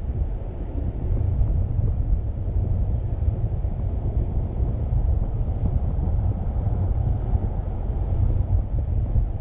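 Steady low rumble of a car on the move: wind buffeting the microphone mixed with road noise.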